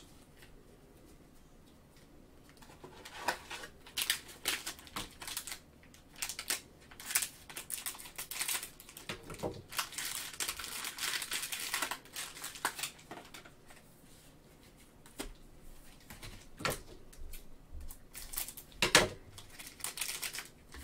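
Plastic cello pack wrapper of trading cards crinkling and tearing as it is opened by gloved hands. It starts about three seconds in, is densest about ten seconds in, and ends with a sharp crackle near the end.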